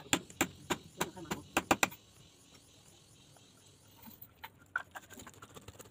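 Knife striking fish on a wooden chopping block: a quick run of sharp knocks, about three a second, for the first two seconds, then a few softer knocks near the end.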